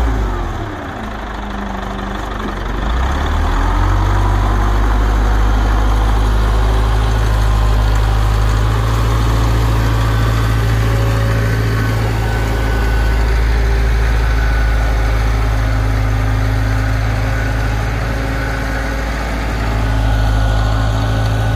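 Diesel engine of a wheel loader working under load as it reverses and pushes its bucket through a heap of composting manure. The engine drops in revs about half a second in, then revs back up around three to four seconds and runs hard and steady, with a brief easing near the end.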